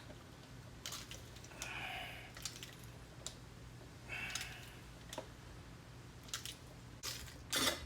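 A hand-operated fluid transfer pump being worked, pushing gear oil from a quart bottle into a rear differential. Scattered clicks and a few short strokes about two seconds apart, the loudest near the end.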